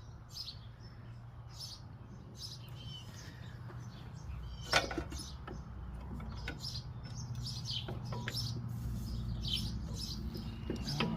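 Small birds chirping over and over, with a steady low hum underneath and a single sharp knock about five seconds in.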